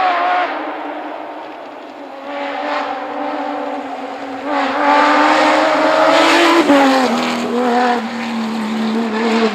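Porsche 911 GT3 RC rally car's flat-six engine under hard throttle. Its pitch climbs for about two seconds, drops sharply about seven seconds in, then holds lower, over loud tyre and road noise.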